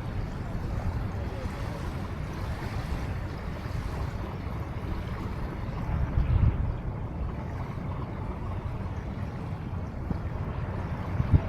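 Riverside ambience of the Huangpu River: wind rumbling on the microphone over steady water noise, with stronger gusts about six seconds in and near the end.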